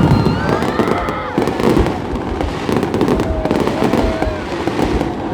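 Fireworks exploding in rapid, overlapping bangs and crackles, with no let-up.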